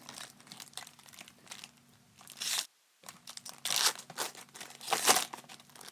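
Foil wrappers of baseball card packs being torn open and crinkled, with three louder rips toward the middle and end.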